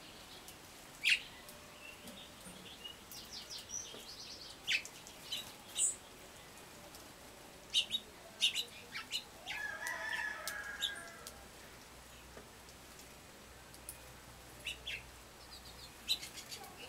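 Small wild songbirds giving short, sharp chirps and chip notes scattered throughout, with a longer, lower call about ten seconds in.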